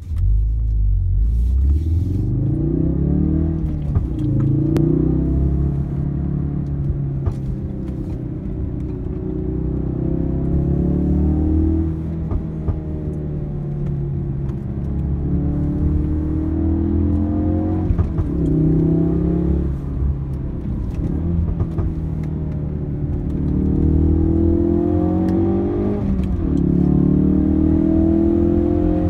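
Ford Focus RS's turbocharged 2.3-litre four-cylinder engine, heard from inside the cabin over a deep road rumble, pulling hard through the bends. Its pitch climbs and then drops sharply several times as the car accelerates and the revs fall away.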